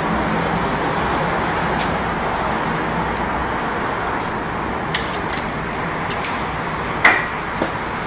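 Steady background noise with a few light clicks of an insulated hand tool working at the microwave's high-voltage capacitor, then a louder clack about seven seconds in as the tool is set down on the bench.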